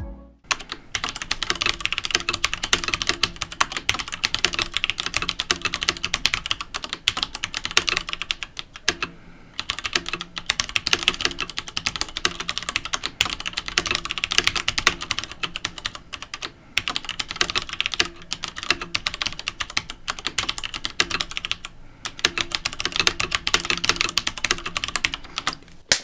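Fast typing on a Leopold FC900R PD mechanical keyboard with Cherry MX Red linear, non-clicky switches: a dense, continuous clatter of keystrokes with a short pause about nine seconds in.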